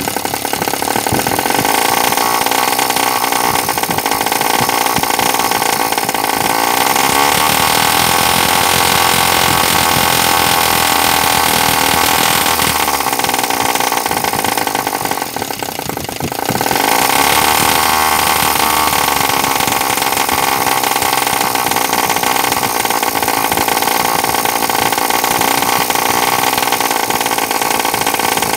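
Small homemade single-cylinder two-stroke engine running fast on a gasoline and oil mix, a steady high-pitched buzz. About halfway through it dips briefly, then picks back up to full speed.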